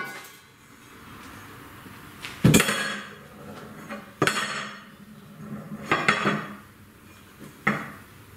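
Metal clanking: four separate knocks with a short metallic ring, the loudest about two and a half seconds in, as metal is handled against a homemade sheet-metal oven.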